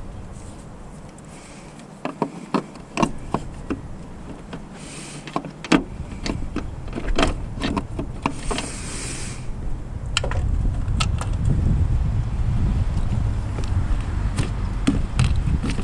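Scattered clicks and clinks of tools against metal, then a cordless impact driver running steadily from about ten seconds in.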